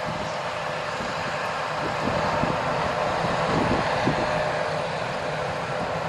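John Deere T670i combine harvester running while harvesting barley: a steady, unbroken drone of the engine and the threshing and cutting machinery.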